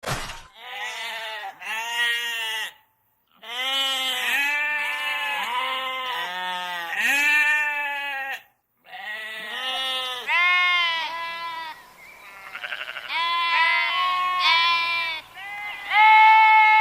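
A flock of sheep bleating: many short bleats at several pitches overlap one another, with two brief silent breaks.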